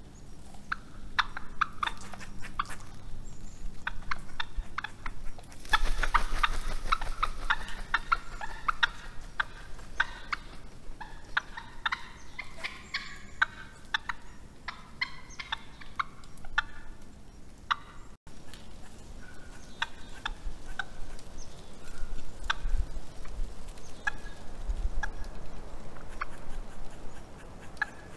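Wild turkeys calling: a busy run of many short, repeated notes from several birds, densest in the first half and sparser later.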